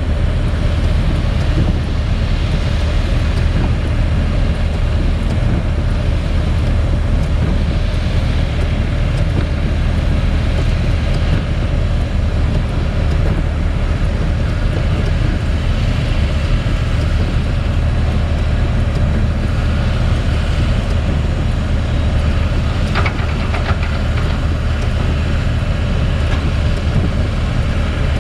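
Steady low mechanical rumble with a constant hum and hiss, like an engine running without change.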